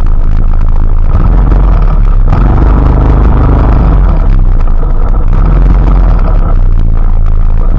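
Rain falling steadily: a dense, loud, even hiss with a deep low rumble under it.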